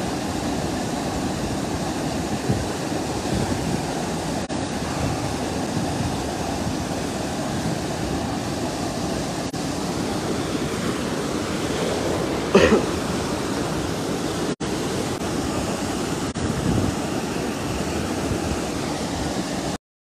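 Muddy floodwater rushing steadily over rock in a flooded gully after heavy rain. A brief pitched call or tone cuts through about two-thirds of the way in, and the sound stops abruptly just before the end.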